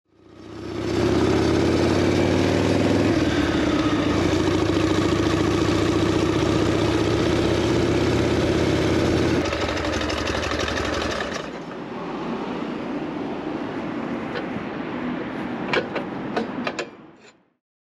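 Harley-Davidson Shovelhead air-cooled V-twin engine running loud and steady as the motorcycle is ridden, easing off about nine seconds in, with its deep engine sound dropping away a couple of seconds later. After that, quieter street sound with a few sharp clicks near the end.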